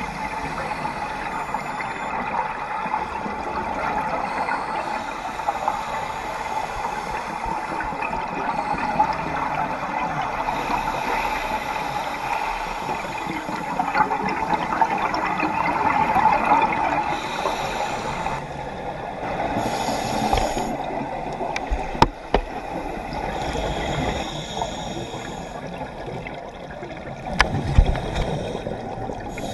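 Underwater sound picked up by a diving camera: a steady watery rush with gurgling bubbles from a scuba diver's exhalations. Two sharp knocks, one about two-thirds of the way through and one near the end.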